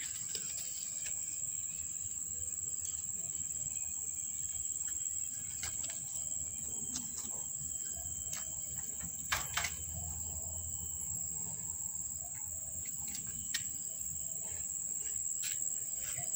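Steady high-pitched trill of insects such as crickets, with faint bird calls and scattered sharp clicks, two of them close together about nine and a half seconds in.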